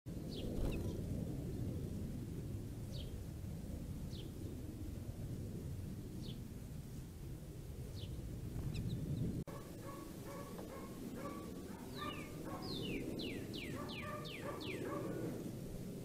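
Songbirds calling: short high chirps every second or two, then after an abrupt break a busier run of repeated notes and a quick series of falling whistles. A low outdoor rumble runs underneath.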